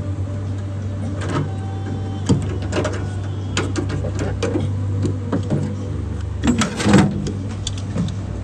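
Sheet-steel wheel-tub lip being bent and torn with locking pliers: irregular metallic creaks and clicks, the loudest a little before the end, over a steady low hum.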